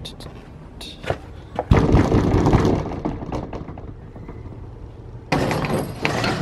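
Metal roll-up shop door being raised by its hand chain: a sudden rattle of the slats and clinking chain starting about five seconds in. Before it there are a few scattered knocks and a short low rumble.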